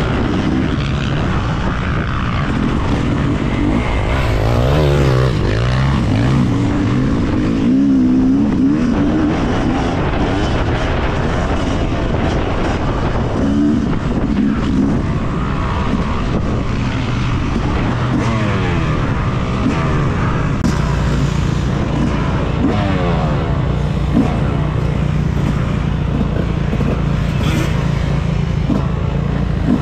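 Yamaha motocross bike engine heard from its own onboard camera, revving up and down through gear changes under hard throttle. A second dirt bike is close by about five seconds in.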